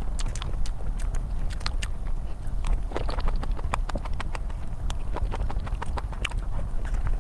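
Close-miked eating of cream cake: irregular wet mouth clicks and smacks of chewing, over a steady low hum.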